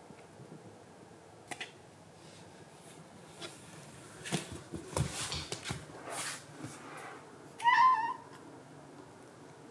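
Rustling and light knocks as a heavily pregnant British Shorthair cat moves over a blanket and climbs out of a cardboard box, then one short, loud meow near the end. She is close to giving birth.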